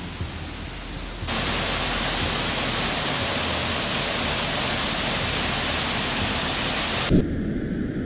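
A waterfall pouring into a rock pool: a loud, even rush of water that starts abruptly about a second in and cuts off just as abruptly about seven seconds in.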